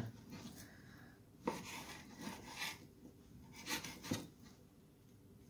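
Kitchen knife slicing through raw skinless chicken thigh on a wooden cutting board, a quiet scraping and rubbing with a few light knocks of the blade meeting the board.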